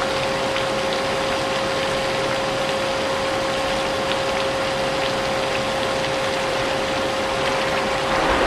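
Vacuum cleaner running steadily, its motor giving a constant whine, over the even hiss of steady rain with faint scattered drop ticks.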